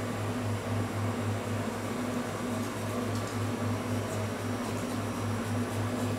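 A steady low machine hum, pulsing evenly a few times a second, with an even hiss over it, like a fan or air-conditioning unit running.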